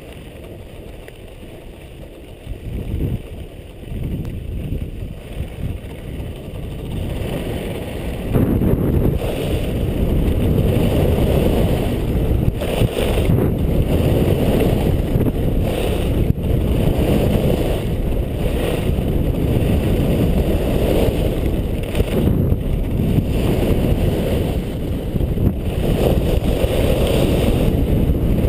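Wind rushing and buffeting the microphone of a helmet-mounted camera on a skier going downhill. It gets much louder about eight seconds in as the skier picks up speed, then stays loud and steady.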